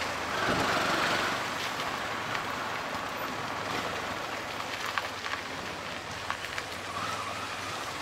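Steady running noise of an auto-rickshaw on the move, heard from inside its open cabin: engine and rushing air and road noise, with a couple of small knocks in the second half.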